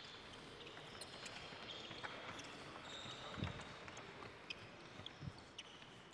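Faint sounds of a sports hall court: sneakers squeaking and ticking on the wooden floor, with two low thuds about two seconds apart in the second half.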